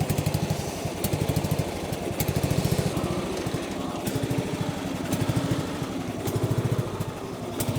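John Deere S92 riding mower's engine running under load as the mower is driven, its firing beat swelling louder and easing off every second or so.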